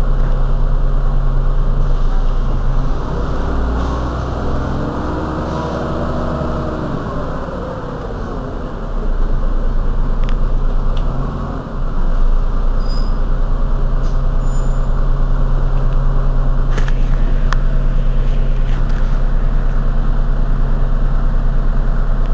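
Heuliez GX 127 city bus's diesel engine idling steadily with a low, even pulse. About three seconds in, a pitched whine rises and falls over several seconds while the engine note dips. Two sharp clicks come near the end.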